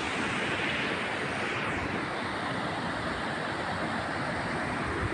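Steady rushing noise with an uneven low rumble, of wind buffeting the microphone by open river water.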